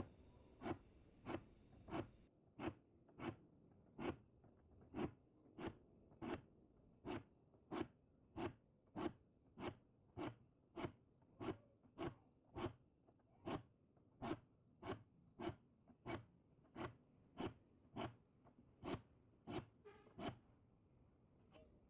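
Diamond file sharpening the teeth of a Gyokucho ryoba Japanese pull saw: short, even file strokes at about one and a half a second, with a brief pause near the end.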